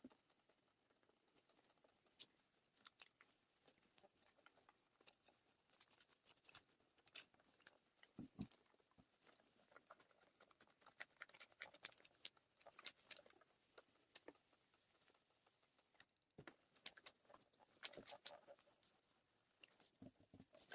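Faint, scattered rustling and light clicks of a clothes iron gliding in circles over parchment paper laid on perler beads, with a soft thump about eight seconds in.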